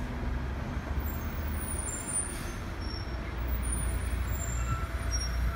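Double-decker bus's diesel engine running as the bus drives slowly past close by: a steady low rumble.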